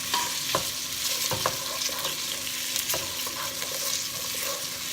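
Cubed potatoes sizzling as they fry in hot olive oil in a stock pot, with several sharp knocks of a utensil against the pot as they are stirred.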